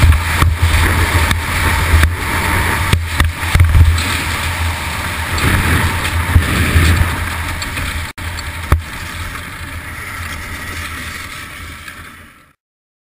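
Bobsled's steel runners rumbling and scraping along the ice track at speed, with a couple of sharp knocks about eight seconds in as the sled bumps. The rumble eases as the sled slows on the run-out, then the sound stops abruptly shortly before the end.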